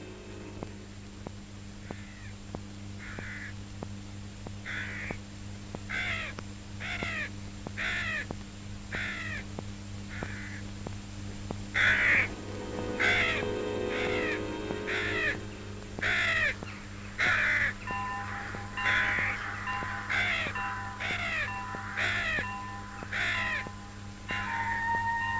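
Crows cawing over and over, about one call a second, with a steady low hum underneath. Held musical tones come in about three-quarters of the way through.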